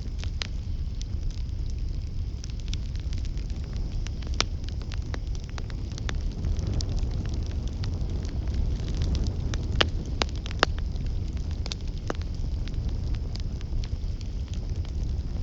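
Campfire burning with a steady low rumble of flames and frequent irregular crackles and pops, a few louder snaps near the middle.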